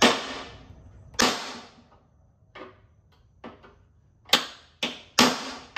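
Hammer striking a bolt used as a makeshift punch, trying to drive out a stuck pin on a mower deck: about seven sharp metal-on-metal blows at uneven spacing, each ringing briefly, some much harder than others.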